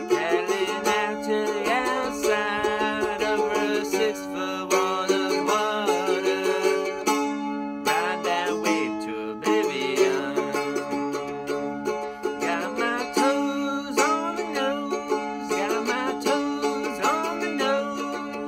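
Gibson mandolin strummed in a steady rhythm, its chords ringing, while a man sings over it in stretches.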